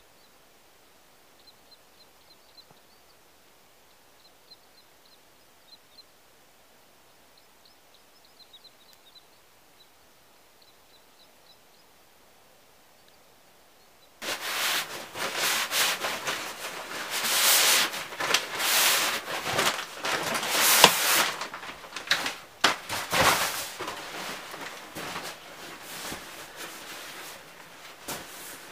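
Faint, short, high bird chirps over quiet outdoor background. About halfway in, a sudden cut to loud, irregular rustling and clattering with many sharp clicks.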